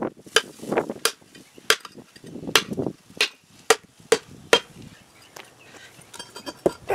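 Repeated blows of a mallet on the end of an antique adze's wooden handle, about one to two a second, each a sharp knock with a short ring, driving the friction-fit handle down out of the rusty iron head.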